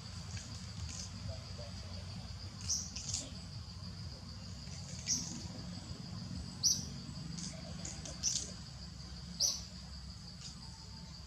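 Short, high chirps repeating every second or two, seven in all, over a steady high-pitched insect drone and a low background rumble.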